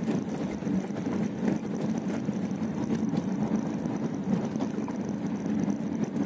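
Steady running noise of a car on a rough, partly gravel road: engine hum mixed with tyre and road noise.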